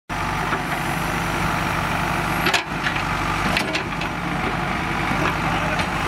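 JCB 3DX backhoe loader's diesel engine running steadily under work, with a few sharp knocks about two and a half and three and a half seconds in.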